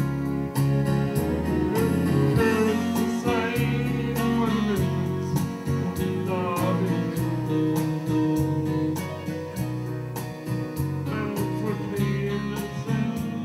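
A man singing into a handheld microphone over keyboard backing music with a steady beat.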